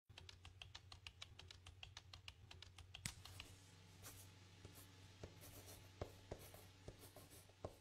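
Faint laptop keyboard typing with quick, fairly regular key clicks. About three seconds in it gives way to a marker scratching and tapping on a whiteboard in sparser, irregular strokes.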